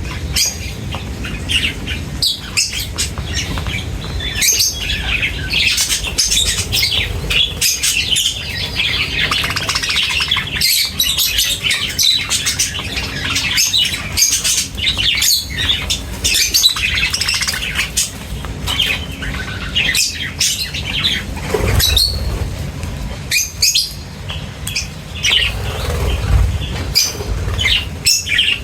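A flock of small birds chirping and twittering busily and without pause, with many short clicks mixed in and a low rumble underneath.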